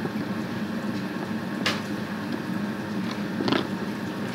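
Knife cutting the stems off fresh collard greens: two sharp cuts, about a second and a half in and again about two seconds later, over a steady low hum.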